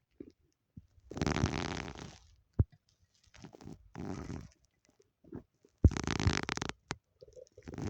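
Human stomach growling in several separate rumbles, the longest lasting about a second, the loudest starting sharply about six seconds in, with a few short clicks between them.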